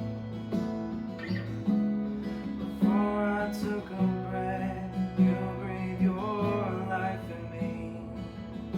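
A worship song with acoustic guitar strumming and a voice singing a held, gliding melody through the middle.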